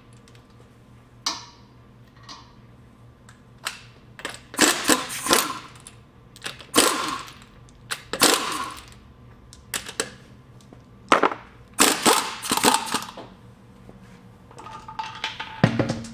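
Impact wrench hammering in a series of short bursts, each under a second to about a second long, as it spins the lug bolts off a car's front wheel. A dull thump comes near the end.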